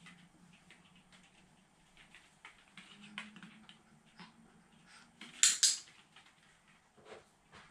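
Light scattered ticks and taps as a small Pomeranian works at a wooden tissue box with its nose and paws on a foam mat, with one loud, brief double rustle about five and a half seconds in as it pulls the tissue out.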